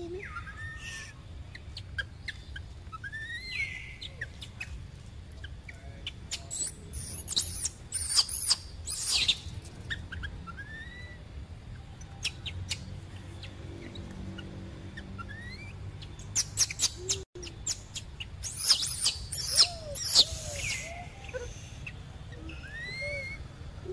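Baby macaque giving shrill squeals and chirps while an adult macaque pulls it by the tail. The calls come in two louder clusters, about seven seconds in and again near eighteen seconds, with scattered short rising chirps between.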